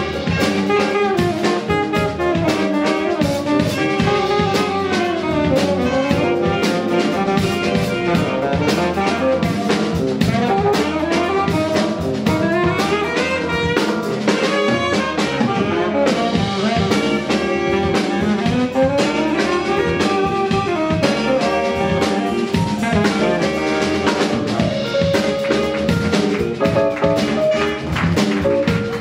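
Live jazz band playing: saxophones carry a moving melodic line over electric bass guitar and a drum kit keeping a steady beat.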